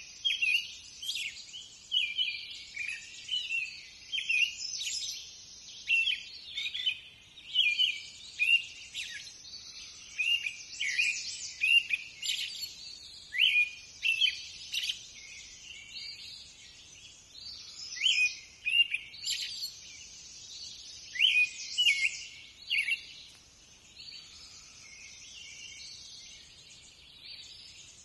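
Songbirds chirping and singing, a dense run of short calls and trills that thins out in the last few seconds.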